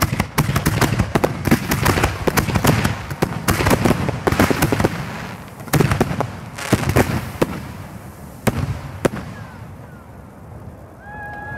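Fireworks display: aerial shells going off in rapid volleys of sharp bangs for about five seconds, then a few single bangs, dying away near the end.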